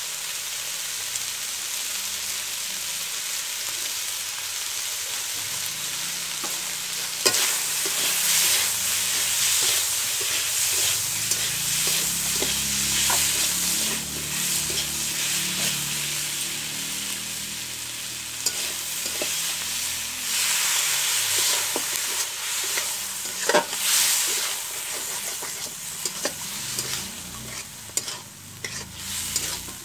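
Pork curry frying in a metal wok, sizzling steadily, while a metal spatula stirs the meat and scrapes and clicks against the pan. The stirring grows busier and louder about a quarter of the way in, and again past the middle.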